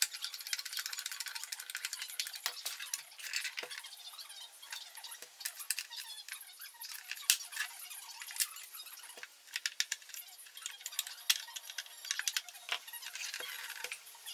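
Screwdriver scraping and clicking in the screws of an IKEA SY sewing machine's plastic housing, with sharp plastic clicks and knocks as the housing is tipped and handled.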